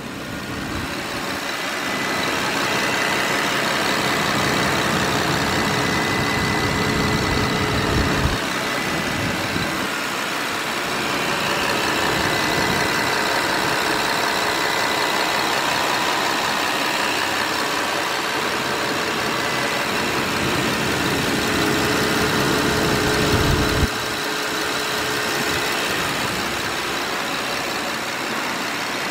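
Aston Martin Vanquish's naturally aspirated 6.0-litre V12 idling steadily, heard close up with the bonnet open.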